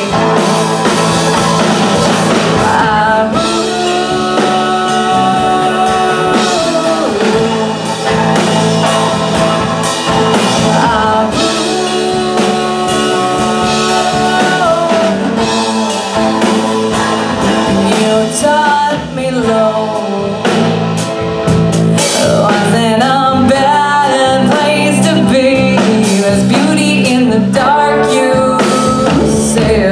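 Live indie pop band playing: a woman singing over electric guitar, electric bass and drum kit.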